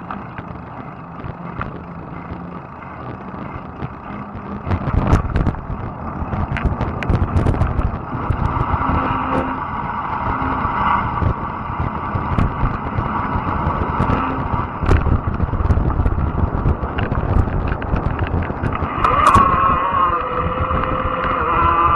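Riding noise from a fat-tire e-bike: wind rumbling on the microphone and tyre noise, with scattered clicks and rattles. A whining tone comes in near the end.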